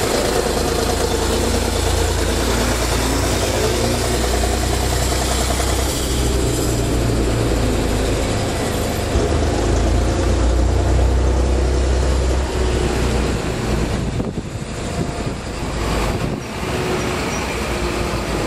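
Heavy diesel trucks running at low speed close by, a steady low engine rumble that fades and breaks up about fourteen seconds in.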